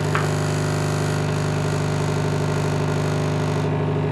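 Industrial electromagnetic vibrator (the kind mounted under a hopper to feed goods) buzzing steadily at an even pitch, driven by its repaired controller, which now runs it properly.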